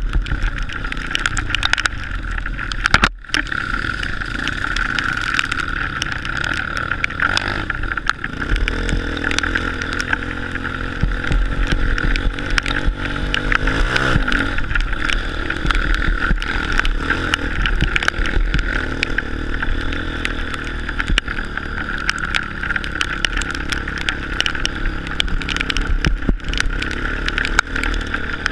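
Honda CRF230 dirt bike's single-cylinder four-stroke engine running under way on a trail ride, its pitch climbing as the throttle opens between about eight and fourteen seconds in, with a brief drop in sound about three seconds in.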